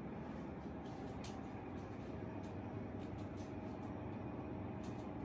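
Steady low background rumble of a room with a faint hum, and a few light clicks.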